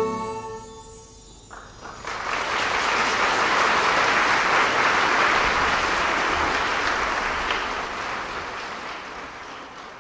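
The song's final chord dies away. About a second and a half in, the audience breaks into applause, which holds steady and then slowly fades.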